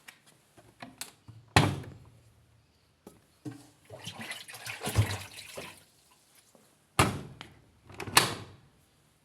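A few loud knocks or clunks that ring out briefly, the first about one and a half seconds in and two more close together near the end, with a stretch of rustling, scraping noise between them.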